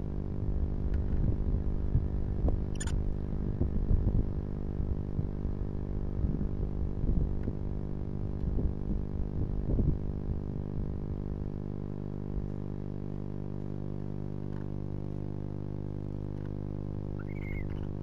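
Barn owls shuffling and preening on wood shavings in a nest box: irregular soft scuffing and rustling over the first ten seconds or so, then mostly a steady electrical hum, with a faint short chirp near the end.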